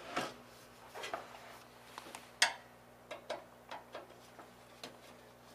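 Irregular light metallic clicks and ticks of a long Phillips screwdriver working a screw out of the sheet-metal cabinet inside the door of a Behmor 1600 home coffee roaster. The sharpest click comes about two and a half seconds in.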